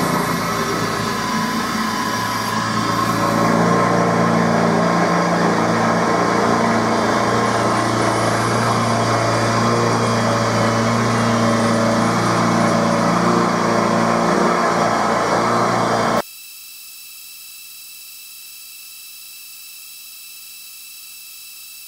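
Emco F1 CNC milling machine cutting a metal block with an end mill: the spindle running and the cutter working through the metal, a steady noise with a few held tones, getting louder a few seconds in. About sixteen seconds in it cuts off suddenly to a much quieter steady hiss.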